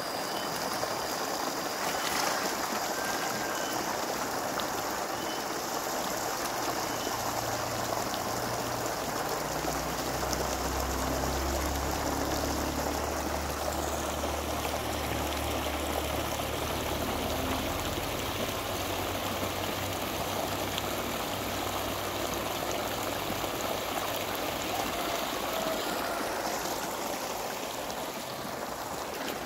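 Steady rush of running water as a shallow fish pond is drained, with a low hum underneath in the middle.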